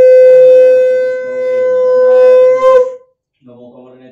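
Conch shell (shankha) blown in one long, loud, steady note. It sags a little about a second in, swells again, and breaks off with a short wobble near three seconds in. Faint voices follow.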